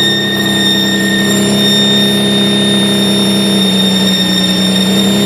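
Nissan 350Z's VQ V6 running, with a steady high-pitched screech over the engine note. The screech started after a radiator replacement, and the owner finds it goes away as the revs drop.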